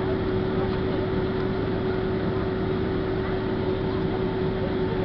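Boeing 767-300 jet engines running, heard from inside the passenger cabin: a steady rushing hum with a constant whine.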